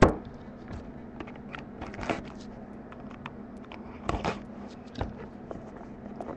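A trading-card box being handled and opened by hand: a sharp knock at the start, then scattered light clicks and rustles of cardboard, over a faint steady low hum.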